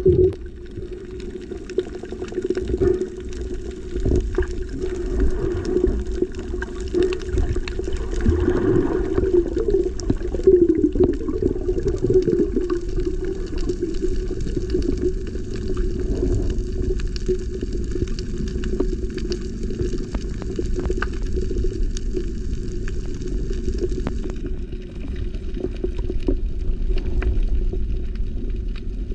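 Muffled underwater noise heard through a submerged camera: a steady low rush of moving water, with scattered faint clicks.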